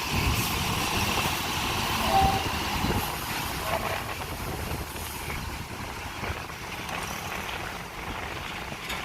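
Heavy vehicle engine running close by as it moves on the dock, louder for the first three seconds and then easing off, with a brief beep-like tone about two seconds in.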